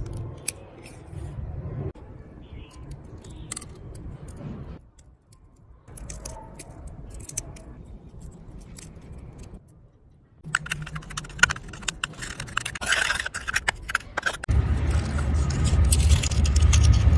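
Match heads being scraped off their sticks into a metal cup with a metal tool, with scattered clicks and scrapes at first. Past the middle the scraping turns dense and fast, then gives way to a louder, steady low rubbing as the scrapings are worked into powder.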